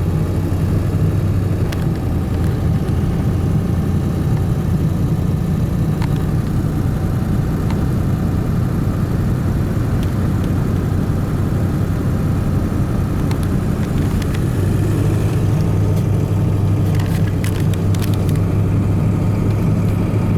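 Inside the cab of a Ford F250 with a 7.3 Powerstroke turbo diesel, while driving: a steady low engine and road drone that gets a little louder about fifteen seconds in.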